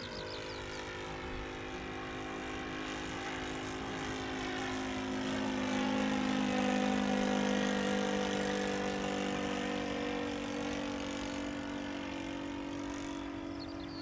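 Engine of a radio-controlled Seagull scale model Gipsy Moth biplane running steadily in flight. It grows louder as the model passes closest, about seven seconds in, then fades as it flies away.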